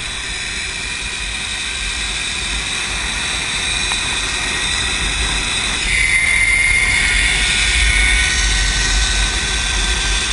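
A steady rushing, rumbling noise with faint steady tones running through it, slowly growing louder; a thin high whine comes in about six seconds in and fades about two seconds later.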